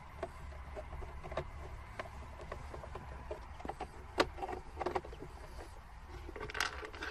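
Small clicks and taps of hard plastic being handled and worked with a screwdriver at a car glove box door's handle opening, with a sharper click about four seconds in and a short scraping rustle near the end, over a low steady hum.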